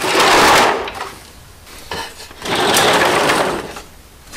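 Plastic crates loaded with wood offcuts dragged out across a concrete floor: two long scraping drags, the second starting about two and a half seconds in.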